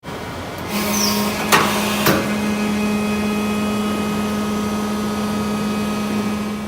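Hydraulic power unit of a Techno T50-3 CNC tube bender running with a steady hum that starts under a second in. Two sharp metallic clunks sound about a second and a half and two seconds in, with a brief high squeak just before them.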